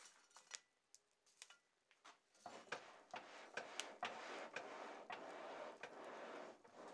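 Charcoal crackling and snapping in a forge fire, with sharp separate pops. About two and a half seconds in, a steady rushing starts under the pops as air from the piston bellows is driven into the fire and the flames are fanned.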